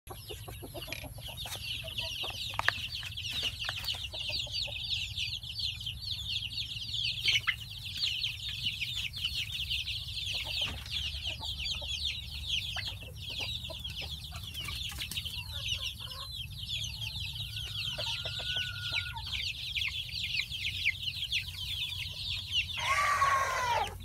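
Many chicks peeping without pause in high, overlapping cheeps, with hens clucking now and then and scattered knocks. A louder hen call comes near the end.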